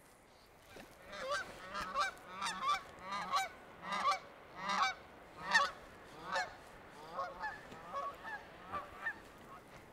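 Geese honking: a long run of short honks that starts about a second in, is loudest around the middle and grows fainter near the end.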